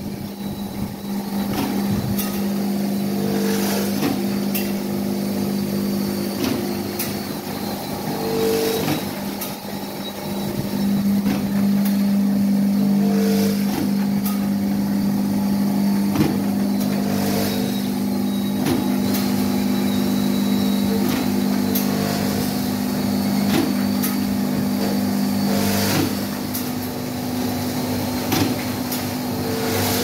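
Tablet blister packing machine running: a steady mechanical hum with a sharp knock every two seconds or so as the machine cycles.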